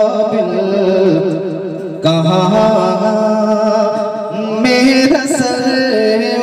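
A man singing a naat, an Urdu devotional poem, drawing out long wavering, ornamented notes, with a new phrase beginning about two seconds in and again near five seconds.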